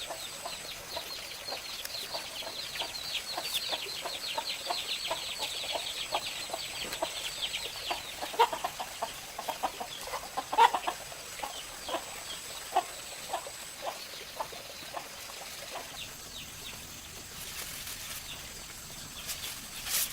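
Chickens clucking in short, repeated calls, thinning out in the last few seconds, with a dense run of high, quick chirping over roughly the first eight seconds.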